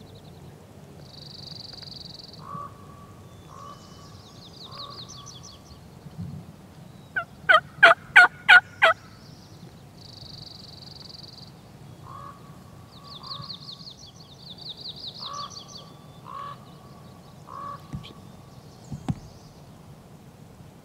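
Wild turkey gobbler gobbling once, loud and close: a rapid rattling call of about six quick notes, lasting under two seconds, about seven seconds in.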